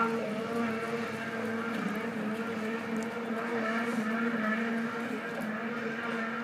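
Polaris IQR 600 snowmobile's two-stroke engine running at a steady pitch as the sled skims across open water.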